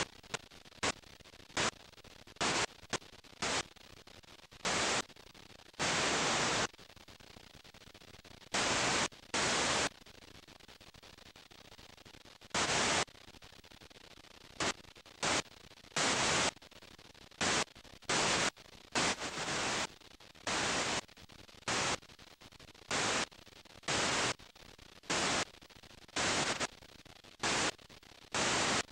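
Bursts of hissing white-noise static from a blank or damaged stretch of old videotape, cutting in and out abruptly at irregular intervals, each from a split second to about a second long, over a faint steady hiss.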